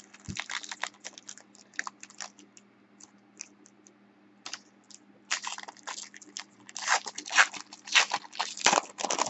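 Crinkling and crackling of a plastic trading-card pack wrapper as hands tear it open and handle the cards, in irregular bursts that grow denser in the second half.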